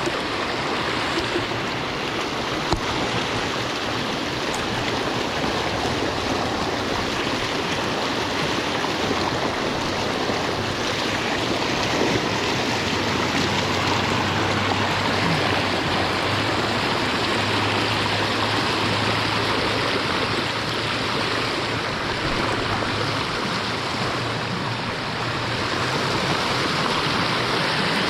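Creek water flowing steadily, an even rushing sound without a break.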